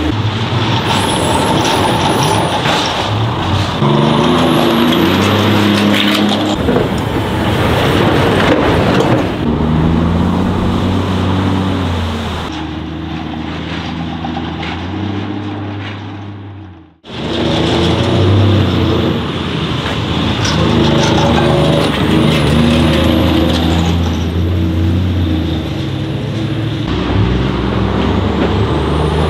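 Heavy Tatra off-road trucks' diesel engines running hard under load, their pitch stepping up and down as they power through mud and over rough dirt track. The sound fades out and briefly drops away about two-thirds of the way through, then the trucks are heard again.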